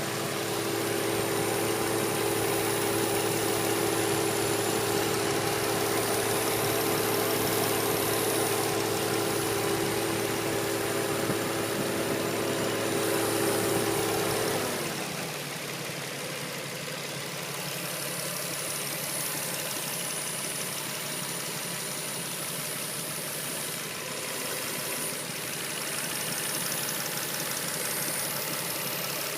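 Car engine idling with a steady hum and a hiss over it; about halfway through the humming tones slide down and drop away, leaving quieter running with the hiss still there. The owner suspects a vacuum leak.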